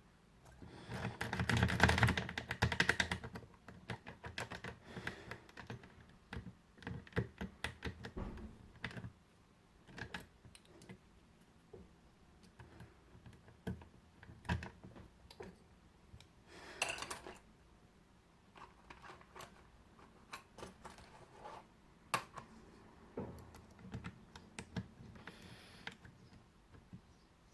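Lock pick and tension wrench working in the keyway of a Squire SAL/40 padlock: clusters of small metallic clicks and scrapes, loudest as a burst of rapid clicking one to three seconds in.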